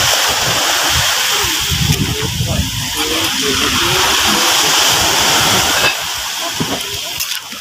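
Large aluminium pot of ginataang gulay (vegetables in coconut milk) simmering over a wood fire, a steady loud hiss while a ladle stirs it; the hiss drops away about six seconds in.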